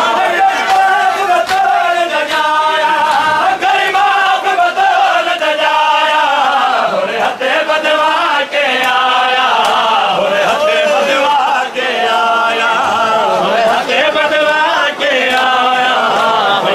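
A crowd of men chanting a mourning lament (noha) together in unison, with sharp slaps of hands beating on chests (matam) cutting through the chant.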